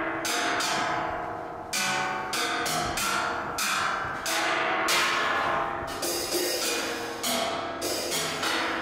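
Live percussion of struck, bell-like instruments: uneven strokes about twice a second, each note ringing out and fading before the next.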